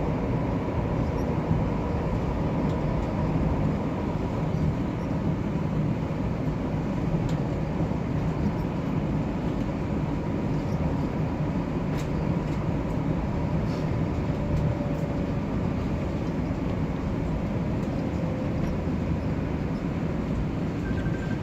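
MRT-3 train running, heard from inside the passenger car: a steady rumble of wheels on rails with a faint steady hum.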